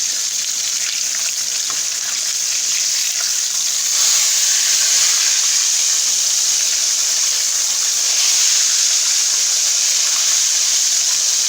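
Flour-coated cube steaks frying in hot oil, a steady sizzle that grows a little louder about four seconds in.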